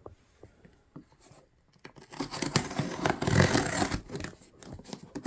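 A shipping package being torn open, with a loud tearing, rustling noise from about two seconds in that lasts about two seconds, surrounded by small handling clicks.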